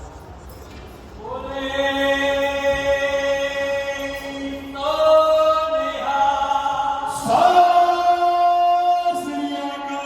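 Background music of choir-like voices holding long notes that change pitch every second or two, growing louder about a second in.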